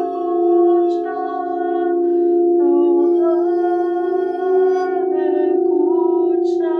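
Singing bowls ringing with steady, sustained tones, while a wordless voice holds long notes over them and steps to a new pitch every second or two: a sound-healing toning.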